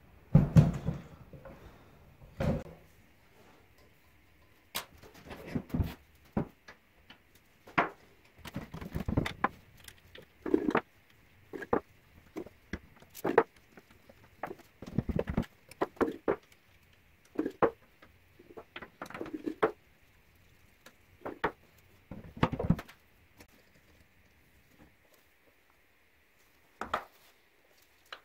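Reassembly of a 1950s Ransomes Ace Mk.2 push reel mower on a wooden workbench: a heavy thump as the mower is set down about half a second in, then irregular knocks, clicks and clinks of metal parts and tools being fitted to the side plate and wheels, with a few seconds' pause near the end.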